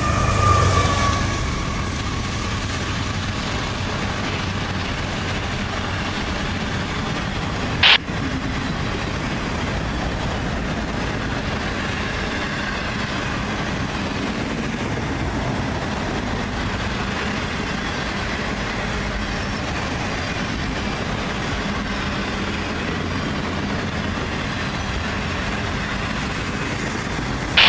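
CSX freight train passing at speed, a long line of autorack cars rolling by with a steady wheel-on-rail rumble and clatter. In the first second, as the head end goes by, a few tones slide down in pitch. About eight seconds in there is a single sharp clank.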